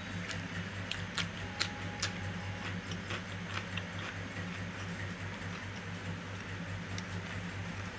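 Eating sounds while eating by hand: a quick run of sharp clicks in the first few seconds and one more near the end, over a steady low hum.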